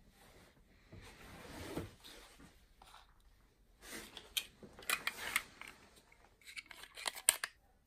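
Handling of a small clear plastic box holding small steel milling arbors: a rubbing sound, then two bursts of sharp plastic clicks and taps as the box is handled and opened.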